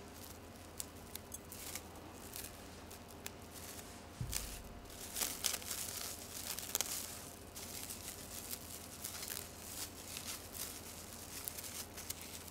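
Plastic cling film crinkling and rustling in irregular crackles as it is stretched tight over a head and its ends pulled and twisted. A soft low bump about four seconds in.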